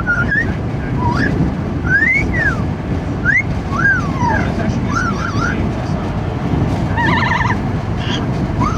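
Amazon parrot calling with short whistled glides that rise and fall, one every second or so, and a wavering call about seven seconds in, over steady wind and road noise in a moving car.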